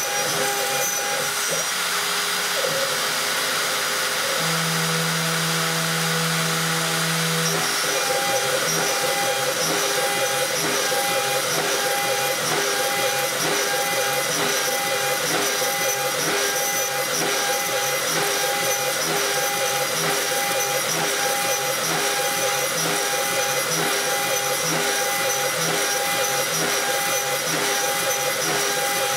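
The router spindle of a homemade CNC wood router runs steadily while a small end mill cuts 10 mm aluminium plate (AlCuMg1), giving a steady whine over the noise of the cut with a regular pulsing in it. A low steady hum joins for about three seconds near the start.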